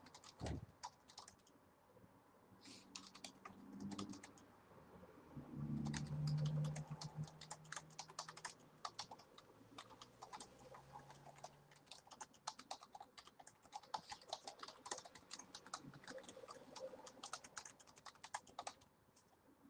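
Typing on a computer keyboard: irregular runs of quick key clicks, with a brief low hum about six seconds in.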